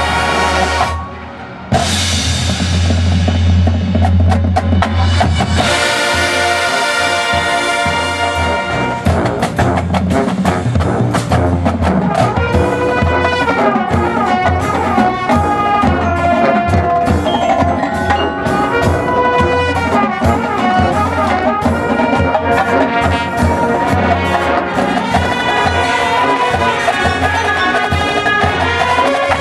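A drum and bugle corps playing live: a brass horn line over marching snare, tenor and bass drums, with a front ensemble of marimbas and electric bass. The sound drops out briefly about a second in and then returns in full, and from about a third of the way through a fast, dense drum rhythm runs under the brass lines.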